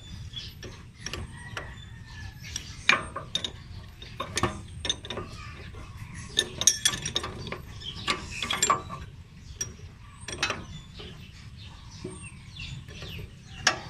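Steel open-end wrench clinking and knocking on a bolt of a Yanmar reaper's cutter-blade drive arm as the bolt is tightened by hand, in irregular sharp clicks.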